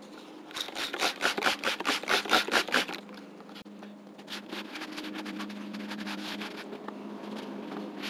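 A trigger spray bottle of cleaner squirted about a dozen times in quick succession, then a terry towel wiping and scrubbing the rubber roof with a softer, steady rubbing.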